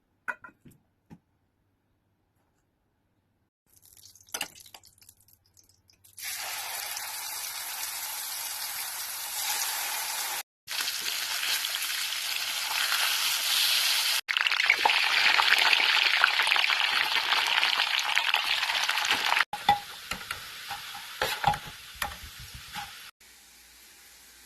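Chicken and potatoes frying in a pan, a loud steady sizzle in several edited segments, with a few knocks and clinks at the start and near the end.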